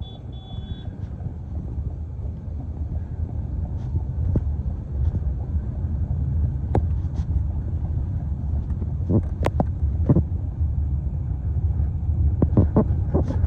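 Low steady rumble of street traffic and wind on the microphone, with a few sharp knocks about nine seconds in and again near the end.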